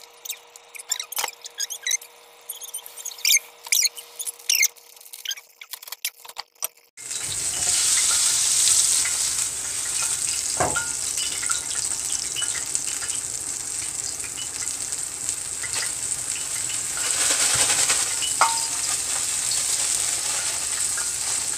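Scattered light clicks and clatter, then from about 7 s in a steady loud sizzle of hot oil frying in a skillet.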